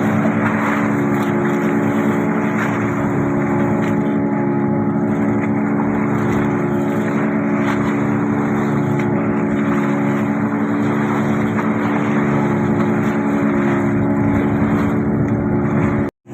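Fishing boat's engine running steadily at a constant speed, with the rush of water and wind around the hull. The sound drops out completely for a moment near the end.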